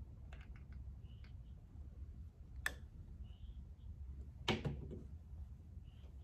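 Handling of a skincare product container over a low steady room hum: a few small clicks, then a sharp click a little before the middle and a louder knock about two-thirds through, as the container is put down on a hard surface.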